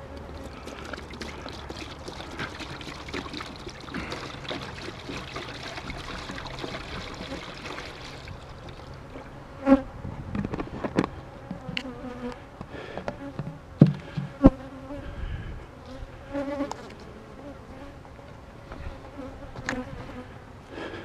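Honey bees buzzing in a swarm around open hives, with a few sharp knocks in the second half.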